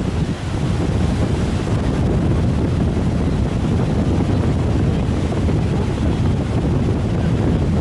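Heavy wind rumbling on the microphone over steady, rough sea surf breaking on a beach.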